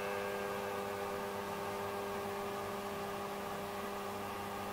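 Steady mains hum with several overtones, under a faint hiss, from a rewound microwave oven transformer whose one-turn cable secondary is shorted through a steel rod to heat it red-hot.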